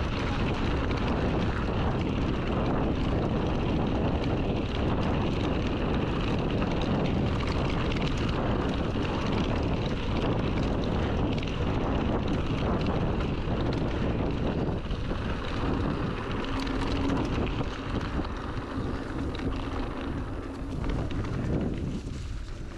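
Wind rushing over the microphone, with rolling noise from an electric mountain bike riding at speed along a trail. A faint steady hum joins for a few seconds in the second half, and the noise falls away near the end as the bike slows.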